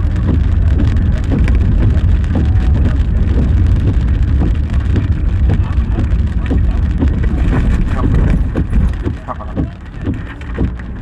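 Road and engine noise heard from inside a moving car, a steady low rumble with scattered sharp taps; the rumble eases about eight seconds in.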